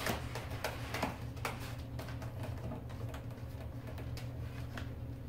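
Dachshund puppies' claws tapping and scrabbling against the wall of a flexible plastic tub as they try to climb out: irregular light clicks over a steady low hum.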